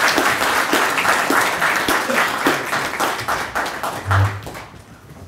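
Audience applauding, dense clapping that thins out and dies away near the end, with a brief low thump about four seconds in.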